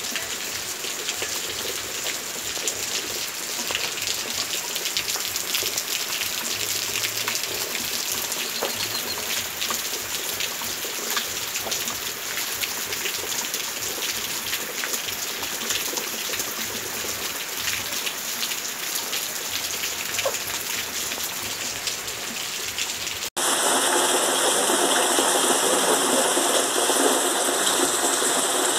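Heavy rain falling steadily, with many individual drops tapping close by. About 23 seconds in it cuts abruptly to a louder, rougher rush of rain.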